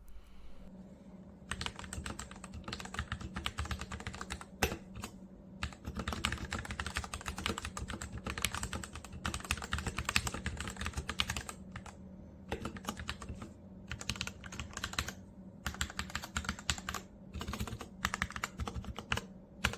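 Typing sound test on a Royal Kludge RK84 mechanical keyboard fitted with hand-lubed switches and its stock keycaps: fast runs of key clacks with a few short pauses.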